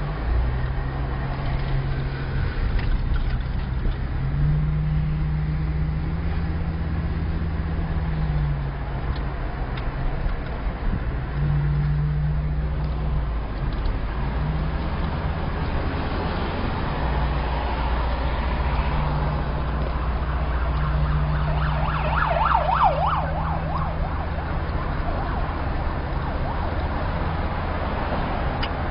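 Car cabin noise while driving: a steady low engine and road drone whose pitch steps up and down several times as the car's speed changes. About three quarters of the way through comes a short buzzing rattle.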